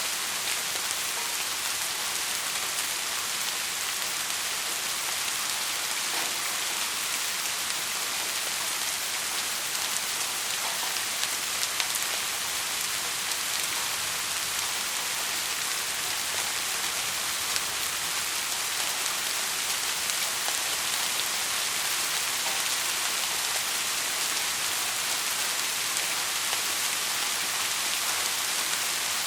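Heavy rain falling steadily: a dense, even hiss of drops with a few sharper drop ticks standing out.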